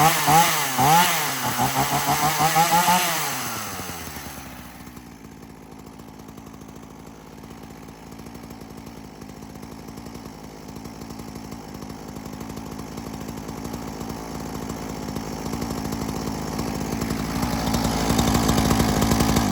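Ryobi RY3716 two-stroke chainsaw engine revved in several quick blips during the first three seconds, then dropping back to a steady idle that grows gradually louder toward the end. The saw is running again after months in storage.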